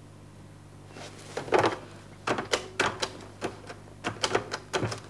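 Desk telephone being handled and dialled: a clunk as the handset is picked up, then a quick, irregular run of sharp clicks from the keys.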